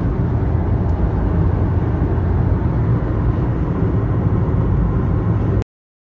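Steady road and wind noise inside a Toyota Prius cabin at highway speed, a low, even rumble. It cuts off abruptly near the end.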